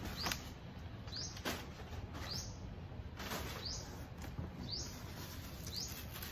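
Kraft packing paper crinkling and rustling as it is pulled out of a cardboard box, with a few sharp crackles in the first two seconds. Behind it, a bird chirps repeatedly, a short rising chirp about once a second.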